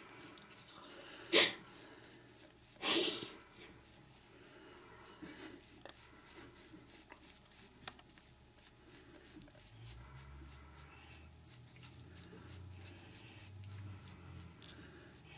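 Toothbrush bristles rubbing faintly over a baby hedgehog's quills, with two short, sharp breathy puffs about a second and a half apart near the start and a low rumble in the second half.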